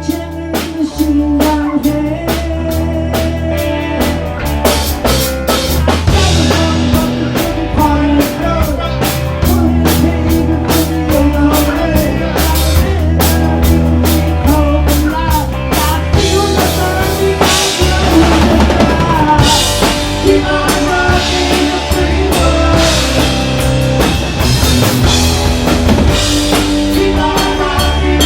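Live rock band playing at full volume, with a driving drum kit (kick drum and snare strokes) over a bass line and guitars.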